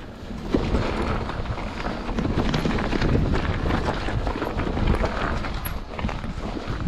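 Mountain bike riding fast down a rough gravel singletrack: tyres crunching over stones and the bike rattling with many sharp knocks, over a heavy low rumble. It eases off near the end as the bike comes to a stop.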